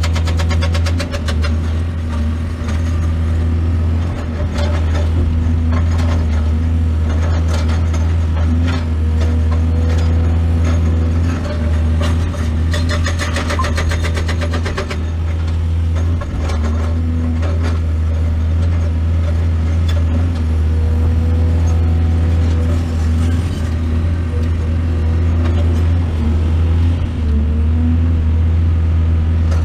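Excavator's diesel engine running steadily at a constant note, with intermittent clatter and knocks from the machine working, thickest about halfway through.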